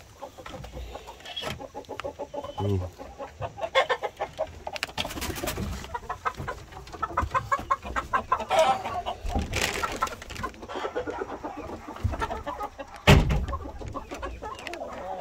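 Chickens clucking, many short calls from a pen crowded with roosters. A single sharp knock about thirteen seconds in is the loudest sound.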